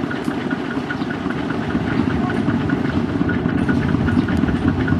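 Farm tractor's diesel engine running steadily, with a fast, regular clatter over the engine note; it grows a little louder about two seconds in.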